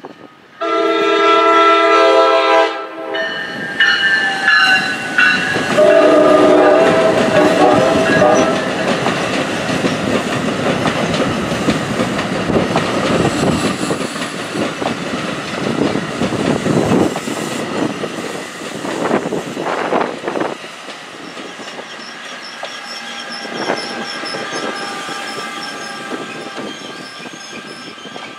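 NJ Transit push-pull commuter train passing at speed. The horn sounds in blasts over the first eight seconds, loudest at the start, followed by the rumble and wheel clatter of the double-deck Multilevel coaches. The ALP-46A electric locomotive pushes at the rear near the end as the sound eases off.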